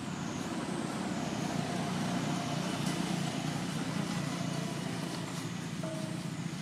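Steady outdoor background noise: a low rumble with hiss, swelling slightly in the middle and easing toward the end, with no distinct knocks or clatter.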